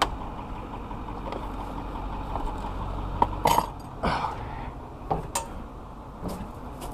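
Vehicle engine idling with a steady low hum that fades a little over halfway through, under several sharp knocks and clacks of hands handling metal parts.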